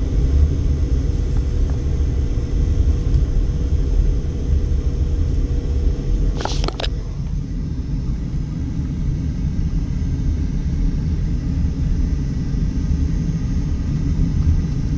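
Car running at low speed, heard from inside the cabin as a steady low rumble of engine and tyres. A faint steady hum drops out about six and a half seconds in, where a brief sharp sound is heard.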